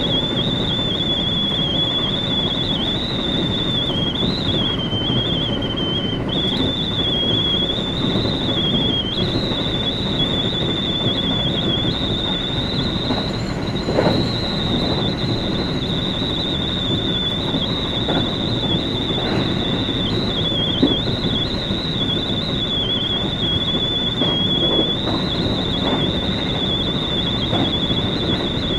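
JR West commuter train running between stations, heard from inside the carriage: a steady rumble of wheels and running gear, with a high, slightly wavering whine that holds throughout and a few light knocks.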